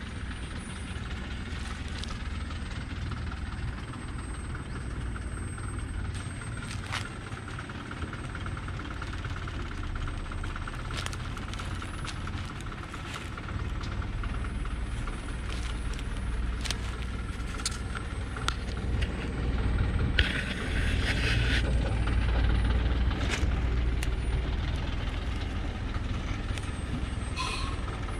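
Diesel engine of an old Thaco Forland truck loaded with acacia logs, running slowly as the truck creeps down a steep dirt slope, growing louder as it comes closer. Scattered sharp clicks throughout, and a short hiss about twenty seconds in.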